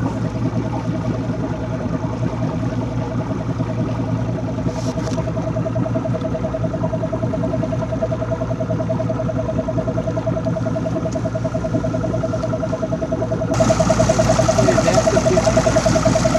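Boat outboard motor running steadily with an even hum. About thirteen seconds in, a louder rushing noise suddenly joins it.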